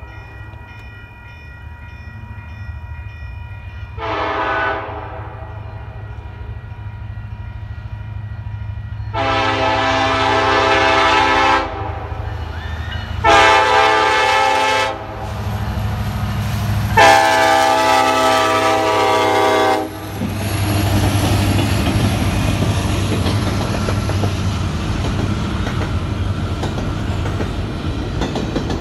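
The Nathan K5LLA five-chime air horn on a Union Pacific EMD SD70ACe sounds four blasts for the grade crossing: a short one, a long one, a short one and a final long one. Then comes the rumble of the locomotive and the train's wheels passing over the crossing. A crossing bell rings over the first several seconds.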